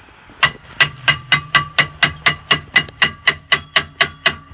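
Rapid, regular hammer blows on metal, about four a second, each leaving a short ringing tone; a low steady hum joins about a second in.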